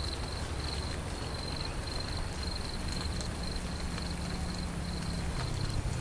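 Outdoor ambience: a steady high-pitched insect trill over a low, steady rumble.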